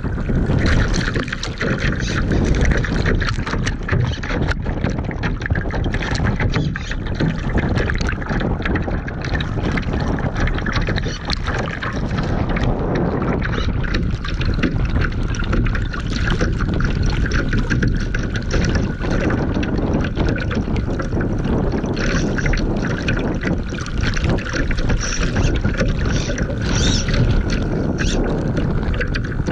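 Water rushing and splashing against the hull of a radio-controlled Laser sailing boat as it heels through choppy waves, picked up close on its deck, with wind buffeting the microphone. The noise is continuous and loud, broken by frequent short splashes.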